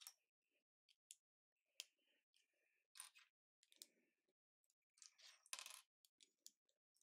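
Small plastic LEGO bricks clicking and clacking as they are handled and pressed together. An irregular scatter of short sharp clicks with a little scraping between them, the loudest cluster about five and a half seconds in.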